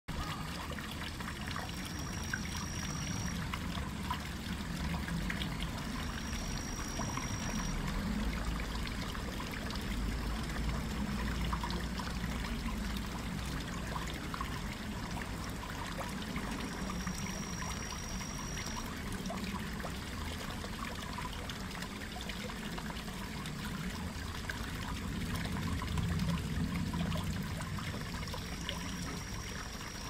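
Small garden waterfall, a thin stream of water trickling and splashing steadily into a pond.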